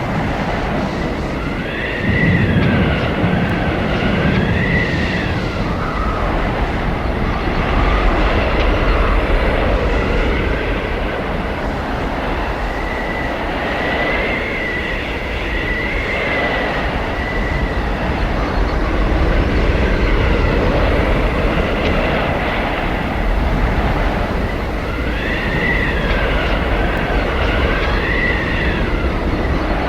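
Blizzard wind blowing hard and continuously, with howling whistles that rise and fall in pitch every few seconds over a low rumble.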